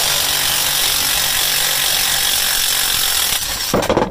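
Cordless impact wrench hammering on a bolt at the rear of a John Deere 2010 tractor, in one long steady run, then a couple of short bursts near the end before it stops.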